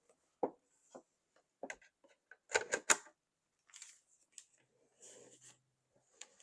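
Handling noise as grooming-kit items and packaging are picked up and set down: a string of light clicks and taps, busiest about three seconds in, with a short soft rustle near the end.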